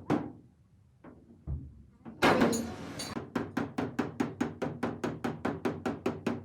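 A hammer tapping rapidly and evenly on the sheet metal of a car hood, about five strikes a second, as the dent is worked out. Before the taps there is a single knock and a short harsh noisy burst.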